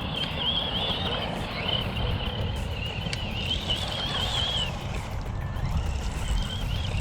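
Electric motor of an RC off-road truck whining as it drives, the pitch wavering up and down with throttle and load and dropping out briefly past the middle, over a steady low rumble.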